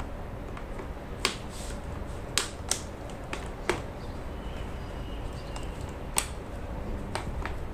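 Scattered sharp clicks and taps of a Quinny Buzz stroller's plastic fittings and aluminium frame as the handle is fitted onto the seat, about seven in all, over a low steady hum.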